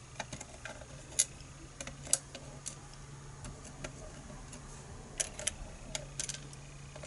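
Light, irregular metallic clicks and taps of a pin-tumbler lock and its shim being handled while it is disassembled, the sharpest about one and two seconds in and a quick run of them near the end, over a faint steady low hum.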